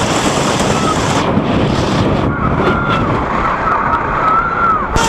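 GCI wooden roller coaster train running over its wooden track, heard from the back seat: a steady rattling rumble with wind buffeting the microphone. From about halfway through, a wavering high squeal rides over the rumble.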